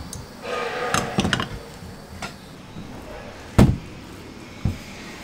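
Bread dough being rolled up and handled on a stainless-steel work table: scattered light taps, then a heavy thump about three and a half seconds in and a smaller one a second later. A brief pitched sound comes near the start.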